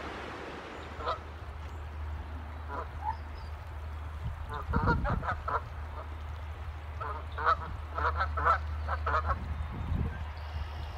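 Canada geese honking: a few single honks at first, then runs of several quick honks in a row from about four seconds in, over a low steady rumble.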